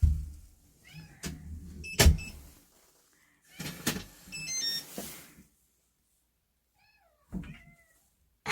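Domestic cat giving several short meows, with a few sharp knocks or thumps between them; the loudest thump comes about two seconds in.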